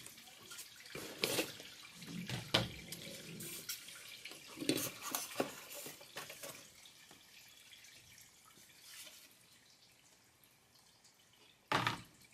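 Paper and card packaging being handled: rustling with scattered light taps and scrapes, busiest in the first half and dying down, then a sharper knock near the end.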